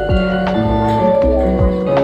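Music: a melody over a bass line and a steady drum beat with deep, falling kick-drum thuds about once a second.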